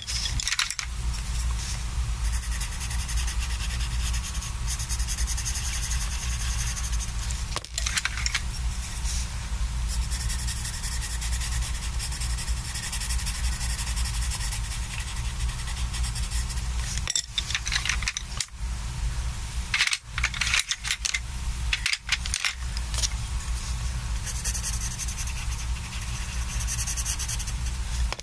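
Colored pencils scratching and rubbing on sketchbook paper in steady shading strokes, with light clicks of wooden pencils knocking together as they are swapped in the hand. The strokes break off briefly several times in the second half.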